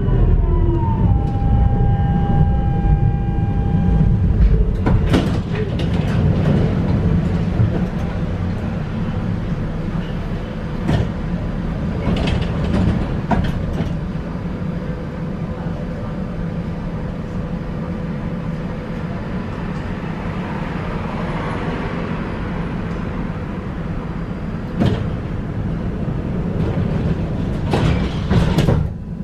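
Electric tram braking to a halt, its motor whine falling away, then standing with a steady low hum from its equipment. Sharp clicks and knocks come every few seconds, with a pair near the end.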